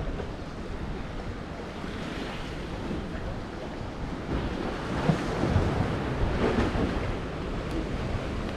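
Sea waves washing with wind rumbling on the microphone, swelling louder about halfway through.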